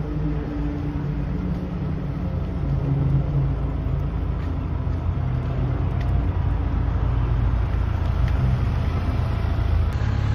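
Police motorcycle's engine idling close by: a steady low rumble.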